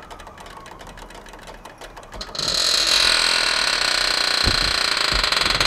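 Air-ride suspension being let down: after about two seconds a loud, steady hiss of air dumping from the rear air bags starts and keeps going, with a couple of low thumps as the truck settles.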